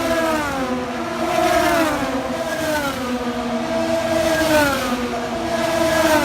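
IndyCars' twin-turbo V6 engines racing on a street circuit: several engine notes overlap, each rising and then falling in pitch again and again as cars accelerate and pass.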